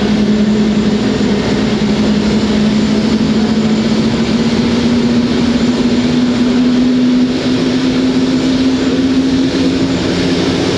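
Airbus A380's Engine Alliance GP7000 turbofan running: a loud, steady rush of noise over a low hum that rises slowly in pitch. The level drops slightly about seven seconds in.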